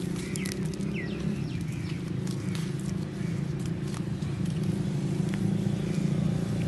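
Footsteps over dry grass and fallen leaves with scattered crackles, over a steady low rumble. A few short bird chirps sound in the first second or so.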